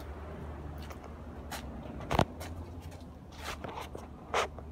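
Handling noise from a handheld camera being moved around: soft rustles and a few clicks, with one sharper knock about two seconds in, over a low steady hum.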